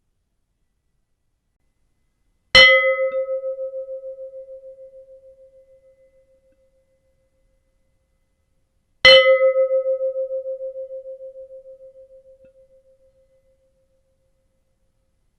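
Ship's bell struck twice, about six and a half seconds apart, picked up by a contact microphone on the bell itself. Each strike is a sharp clang whose bright overtones die within a second, leaving one steady mid-pitched hum that wavers as it fades over about four seconds.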